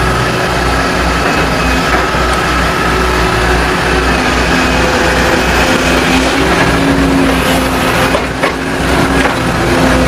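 Volvo crawler excavator's diesel engine running steadily under load as the boom and bucket work, with steady whining tones over the engine. A brief clatter comes about eight and a half seconds in.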